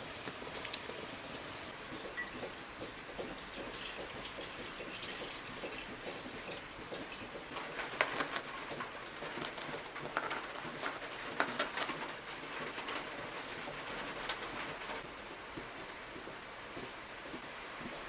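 Steady rain falling, a constant hiss dotted with fine drop ticks. Through the middle of the stretch there is a run of louder, sharper clicks and taps.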